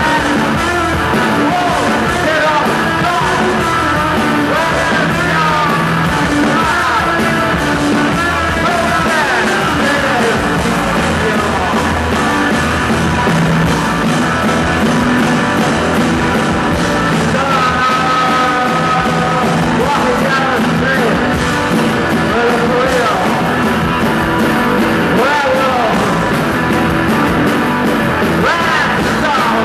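Live rock band playing loud, driving post-punk: electric guitar, bass guitar, drums and keyboard, with a shouted, half-sung lead vocal over it at times.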